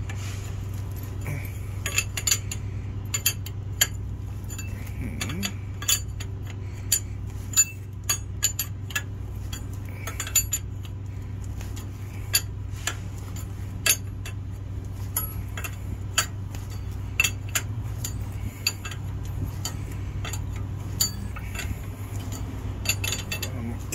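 Steel combination wrench clinking against a nut on a truck air-brake chamber's push rod as the nut is worked loose, many sharp metallic clicks at irregular intervals. A steady low hum runs underneath.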